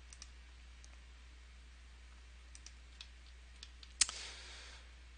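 Scattered faint computer mouse clicks, with one sharper click about four seconds in, over a steady low hum.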